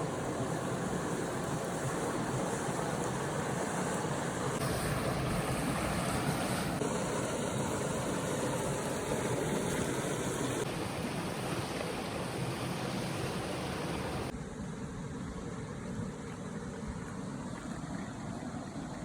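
Meatballs sizzling on a hot stone over a campfire: a steady, noisy hiss whose character shifts abruptly several times.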